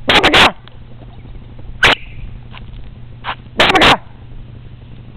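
Alaskan Malamute–Great Pyrenees cross puppy barking: four short, loud barks spaced a second or two apart, the last the loudest.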